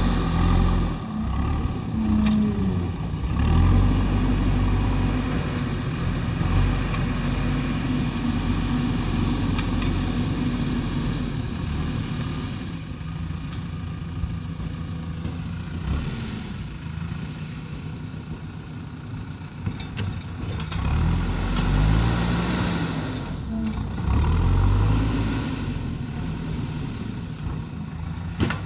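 Diesel engine of a JCB backhoe loader running under varying load while it works. It swells louder in the first few seconds and again about three-quarters of the way through, and eases off in between.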